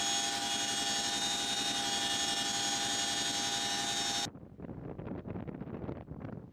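Chinook helicopter heard from inside the cabin with the rear ramp open: a loud, steady turbine and rotor-gearbox whine with several high, fixed tones. About four seconds in it cuts off suddenly to quieter, gusty wind on the microphone.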